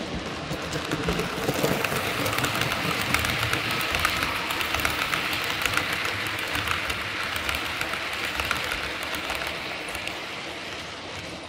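OO-gauge model trains running: a dense, fine clatter of small wheels over the rail joints. It swells as a model passenger train of green coaches passes close, then fades, while a coal train of wagons rolls on the other track.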